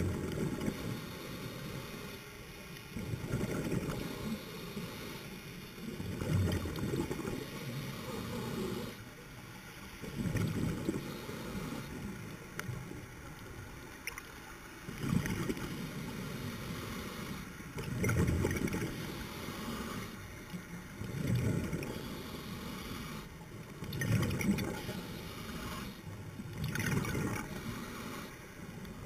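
Scuba diver's exhaled bubbles gurgling out of the regulator, heard underwater in low rumbling bursts about every three seconds, the rhythm of steady breathing.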